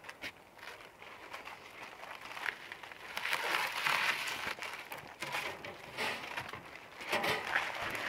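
A pine log scraping and knocking as it is rolled and pushed by hand onto a sawmill's steel bed, bark rubbing on metal, with the scraping loudest from about three to four and a half seconds in.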